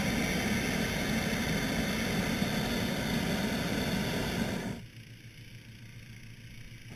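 Hot air balloon propane burner firing in one long blast, cutting off about five seconds in.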